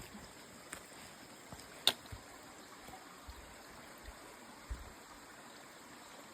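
Small creek running steadily, with a sharp click about two seconds in and a few soft low thumps.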